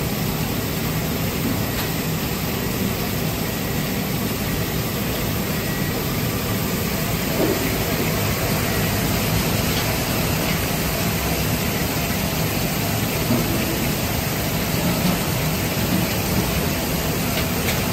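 Steady, even rushing kitchen noise, with a few faint knocks in it.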